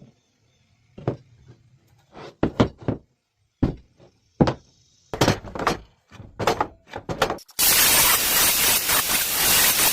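Wooden boards and a jig knocked and set down in a series of sharp thunks, then a circular saw suddenly starts running loudly and keeps going.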